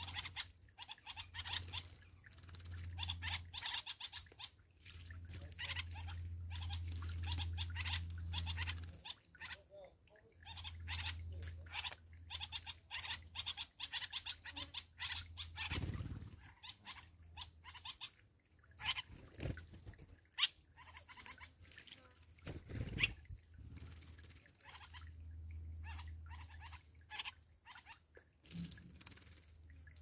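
Wild birds chirping in quick, scattered calls, with wing flutters and splashing from dark-capped bulbuls bathing in shallow water. A few sharper knocks stand out, and a low hum comes and goes.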